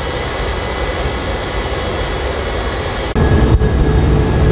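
Jet engines of an E-3A AWACS heard from inside the cockpit as a steady rumble with faint steady tones. A little past three seconds it jumps abruptly to a louder, deeper rumble with a steady hum, with the aircraft on the runway.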